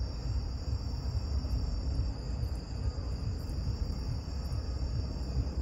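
Crickets trilling steadily, over a low, choppy rumble.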